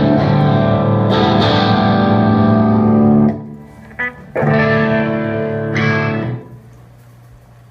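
Distorted electric guitar through an amplifier: a chord held for about three seconds, a short stab, then a second chord held for about two seconds, leaving a low amp hum near the end.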